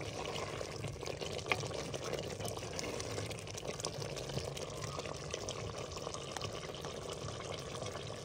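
Potato and pea curry bubbling in a clay handi, a steady liquid sound full of small pops, as a wooden ladle stirs through it. One sharper click about a second and a half in.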